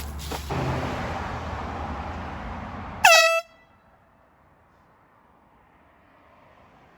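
A short blast from a handheld air horn, about three seconds in, lasting about a third of a second, with its pitch sweeping up as it sounds. Before it there is a steady rushing noise with a low hum. The sound cuts off sharply after the blast to a quiet background.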